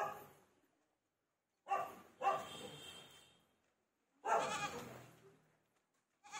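Goat bleating, about four separate calls a second or two apart, each starting sharply and trailing off.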